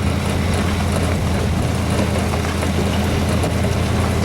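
Engine running steadily at a constant speed, with wind noise on the microphone.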